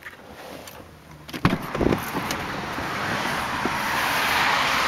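A 2005 Volkswagen Passat's front door is unlatched and pushed open: a sharp click about a second and a half in, then a couple of thumps. A steady rush of outside noise follows and grows louder as the door swings wide.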